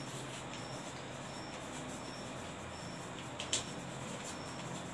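Chalk writing on a blackboard: faint scratches and light taps, with one sharper tap about three and a half seconds in, over a faint steady hum.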